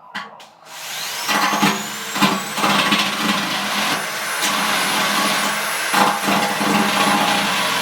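Electric drill with a countersink bit spinning up about a second in, its whine rising and then holding a steady high pitch, with uneven scraping as it cuts the sharp burrs off the edge of a drilled hole in steel.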